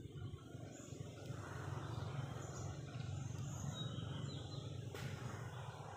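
Faint, short bird chirps over a steady low rumble of outdoor background noise, with a sharp click about five seconds in.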